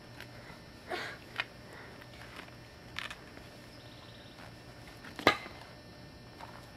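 A few light clicks and knocks over a faint steady low hum, the sharpest and loudest knock about five seconds in.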